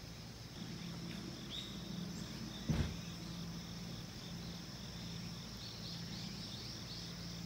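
Outdoor ambience of steady high-pitched insect song with a few short bird-like chirps, over a low steady hum. A single knock, most likely the camera being handled, comes about three seconds in.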